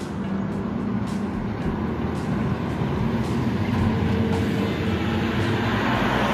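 Highway traffic: the steady hum of approaching vehicles' engines and tyres, slowly building in loudness.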